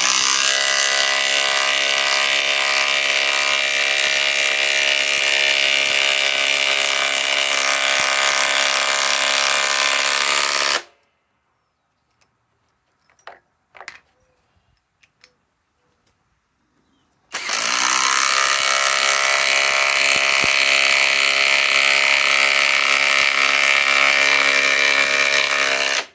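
SKIL PowerCore 20 cordless impact driver hammering 5-inch power lag screws into a wooden timber through a 5/8 socket, a steady rapid hammering. Two long runs of about eleven and nine seconds each cut off sharply, with a few light clicks in the pause between.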